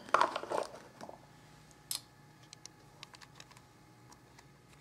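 Hands handling and pressing a lump of air-dry clay on a paper towel: soft rustling near the start, then scattered faint clicks, one sharper about two seconds in.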